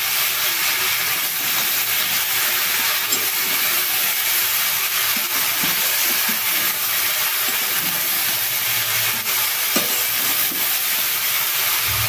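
Ridge gourd cubes and chickpeas sizzling with a steady hiss in a hot aluminium pan, stirred and turned with a flat metal spatula that scrapes against the pan now and then.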